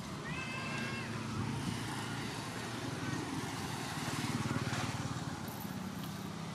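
An infant long-tailed macaque gives one short, high coo about half a second in, over the steady low rumble of a running vehicle engine.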